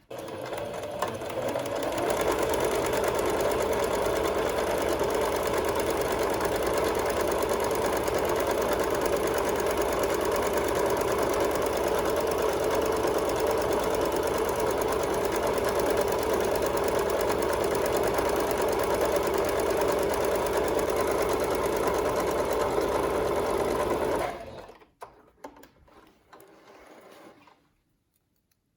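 Electric sewing machine stitching continuously, building up speed over the first two seconds and running at a steady rate for about 22 seconds, then stopping; a few faint handling sounds follow.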